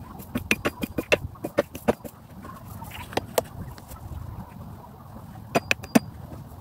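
Sharp knocks of chopping blows on wood against a stump: a quick run of about four or five a second for a couple of seconds, then two single blows, then three close together near the end.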